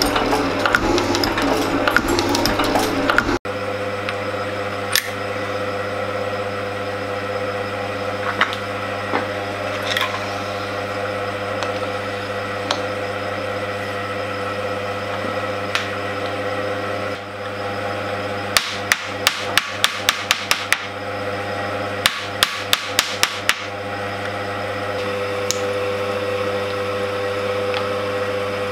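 Metal shaper cutting a 431 stainless steel bar for about three seconds. A steady machine hum follows, with two short runs of sharp metallic taps in the second half.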